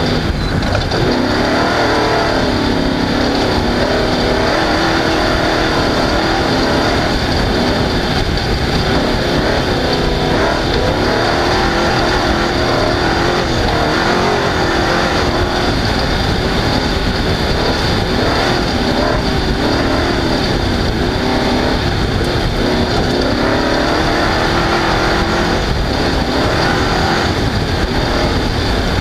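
Off-road race car engine running hard at high revs, its pitch rising and falling continuously as the throttle changes, with a steady high whine above it.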